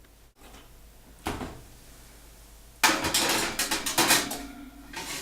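Kitchen clatter of a metal pan and oven gear being handled: one knock, then a second or so of rattling and clanking, with a few more knocks near the end.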